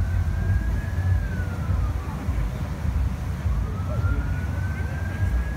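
A siren wailing slowly up and down, each rise lasting about two seconds before falling away, heard twice over a louder, steady low rumble.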